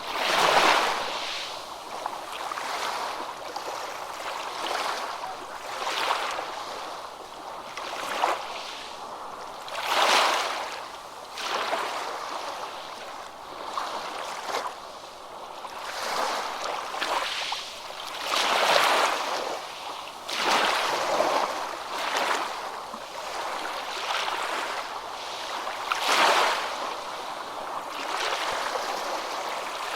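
Small waves washing in, a steady hiss that swells and falls away every two to four seconds.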